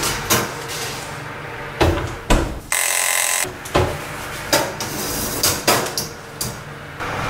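Knocks and clatter of a metal springform tin being slid onto and off the wire rack of an AEG oven, with the oven door handled open. A short burst of hiss comes about three seconds in.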